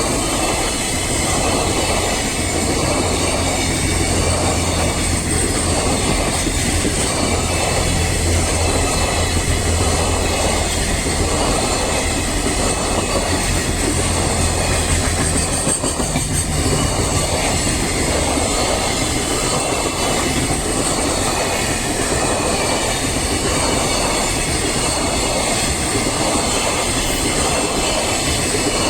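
Long freight train of wagons passing close by, wheels clattering in a steady rhythm over the rail joints with a high metallic hiss from the rails. A low hum runs under it until about halfway through.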